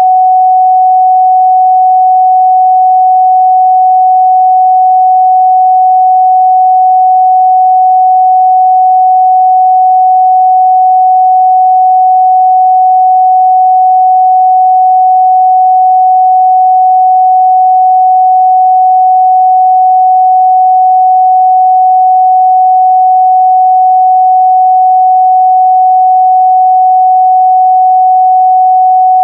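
A continuous, steady 744 Hz sine-wave test tone: a single pure pitch held at an even loudness.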